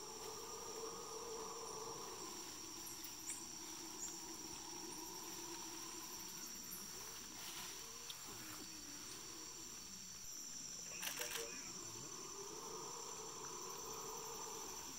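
Amazon rainforest insect chorus: a steady, high-pitched buzzing with a lower drone under it that fades out midway and returns near the end. A few short sharp clicks cut through, the loudest cluster about eleven seconds in.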